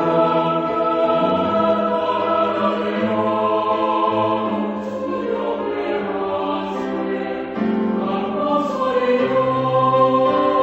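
Mixed choir singing a Korean sacred choral anthem in parts with piano accompaniment, holding and moving between sustained chords.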